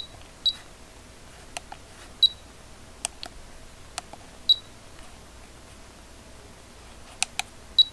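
Buttons on a Klein 935DAGL digital level clicking as they are pressed through its functions, with about five short high beeps scattered among the clicks.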